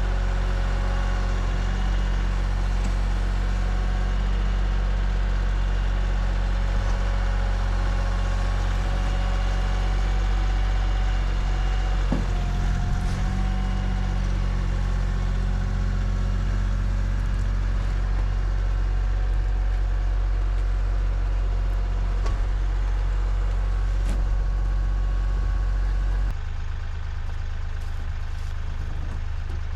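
Engine of a fork-equipped machine running steadily at constant speed while lifting a water tank on its forks; near the end it drops to a quieter, lower running.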